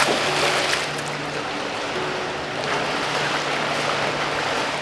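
A swimmer splashing through the water in an indoor pool, kicking off the wall with a splash and then swimming freestyle, with the constant wash of pool water. A steady low hum runs underneath.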